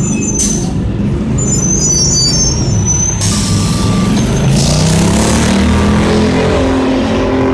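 2003 Orion VII CNG transit bus running at a stop with its engine droning. A high brake squeal comes early, and hisses of air follow: one about half a second in and longer ones from about three seconds in, as the air brakes and doors release. A pitched drone rises in pitch in the second half.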